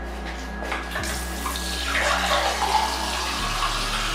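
Kitchen tap running into a drinking glass, filling it with water, starting about two seconds in after a couple of small clicks.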